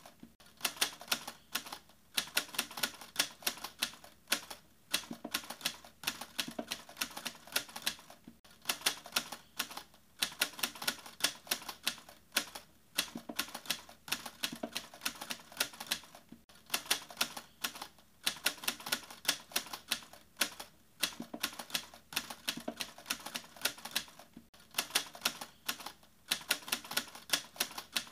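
Rapid clicking like typing keys, dense and irregular, in runs broken by short pauses every few seconds.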